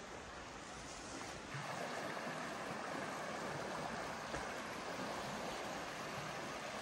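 Shallow creek rushing over small rapids, a steady rush of water that gets louder about one and a half seconds in.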